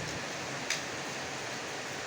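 Heavy rain falling steadily as an even hiss, with one short sharp tick a little after half a second in.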